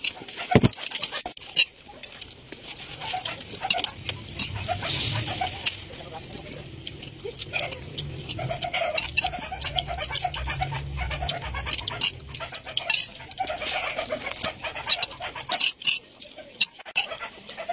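Eating sounds: a metal spoon scraping and clinking in a ceramic bowl of rice, with chewing, heard as many short sharp clicks over a low rumble.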